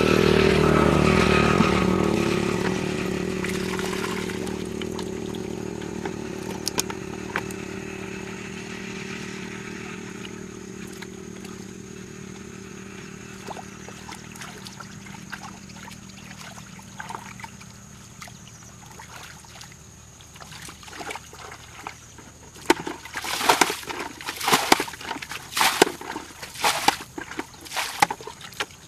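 A passing engine, loudest at the start and fading away over about ten seconds. Near the end, a quick series of splashes as muddy water is scooped and thrown out with a plastic bucket.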